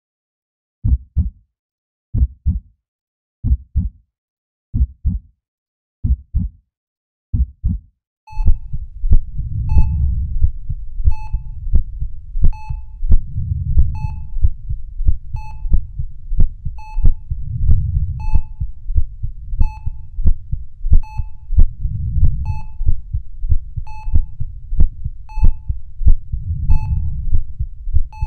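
Heartbeat sound effect: paired low thumps about every 1.3 seconds, alone at first. About eight seconds in, a low rumbling drone that swells and fades joins them, along with a short high electronic beep, like a heart monitor's, repeating about every 1.4 seconds.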